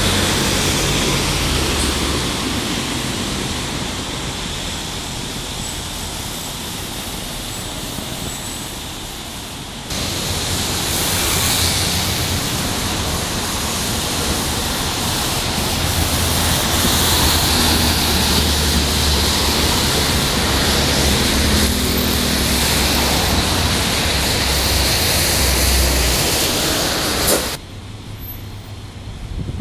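Street traffic noise by a wet road, with cars and a Toei Arakawa Line tram going by, and heavy wind noise on the microphone. The level jumps abruptly about ten seconds in and drops suddenly near the end.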